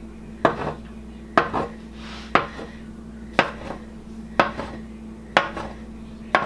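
A steel bench scraper chopping down through soft dough onto a plastic cutting board: a sharp tap about once a second, seven in all, each followed by a lighter tick.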